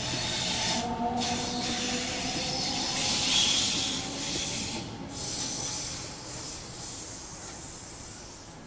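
Sydney Trains Waratah A-set electric train pulling out of the platform: a faint motor whine over rolling rail noise and hiss. The noise peaks about three seconds in, then fades as the last cars pass and move away.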